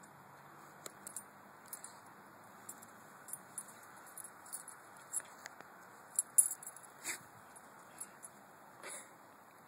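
Metal ID tags and the chain leash clip on a German Shepherd puppy's collar jingling in short, scattered clinks as the puppy squirms on the grass, with two brief fuller sounds from the puppy near the end.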